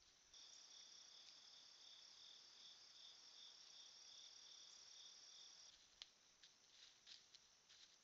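Insect trilling steadily at a high pitch for about five seconds, then stopping abruptly, followed by several light, sharp clicks.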